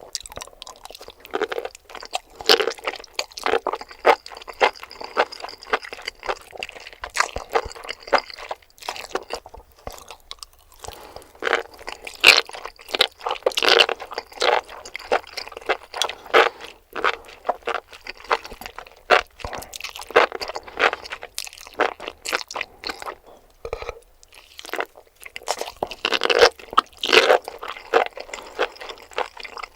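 Close-miked chewing of crunchy enoki mushrooms: runs of crisp, rapid crunches as mouthfuls are bitten and chewed, with short pauses between bites.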